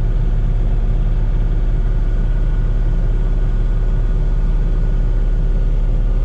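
Diesel engine of a Komatsu PC16 mini excavator running steadily at an even speed, with a deep hum and no revving.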